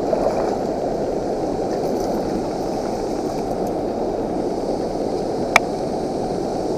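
Steady rush of turbulent river water pouring over and below a low dam spillway, with one sharp click about five and a half seconds in.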